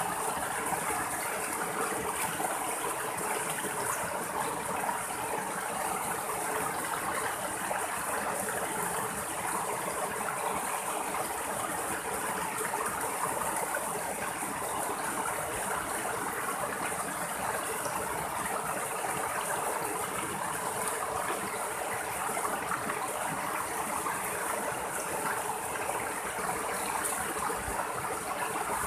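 Shallow rocky stream splashing over small cascades between boulders, a steady, unbroken rush of running water.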